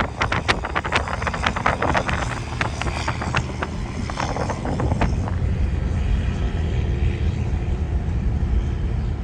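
Car driving, with a steady low rumble of engine and road. Over the first five seconds or so a quick, irregular run of clicks and knocks rattles over it, then stops.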